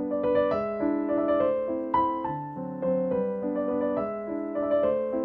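Background piano music: a melody of changing notes over held chords.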